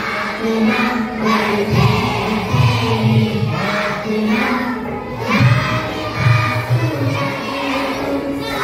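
Many voices, children's among them, singing a devotional prayer together in unison, phrase after phrase.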